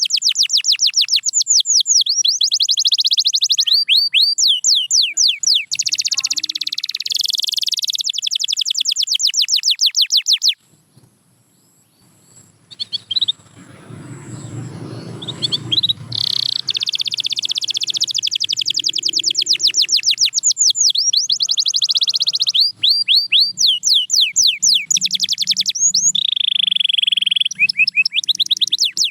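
Canary singing fast, rolling trills of rapidly repeated high notes. About a third of the way in the song breaks off briefly, a low rushing noise follows, and then the trills resume.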